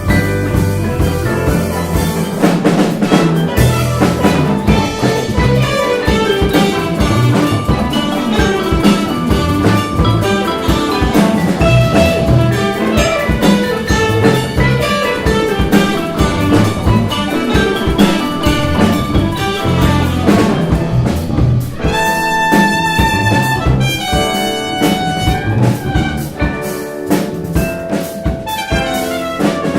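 Live jazz-fusion band playing a busy groove on drum kit, with melodic lines on other instruments; a few long held high notes ring out about two-thirds of the way through.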